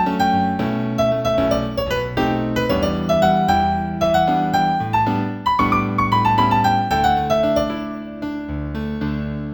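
Piano music: a flowing run of notes over held bass notes, rising and falling, that fades out near the end.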